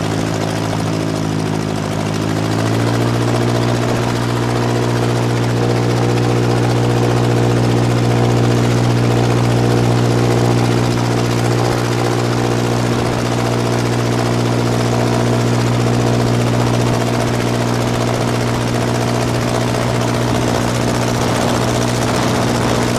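Snowplane's engine driving its caged rear pusher propeller, revving up about two to three seconds in and then running steadily at the higher speed.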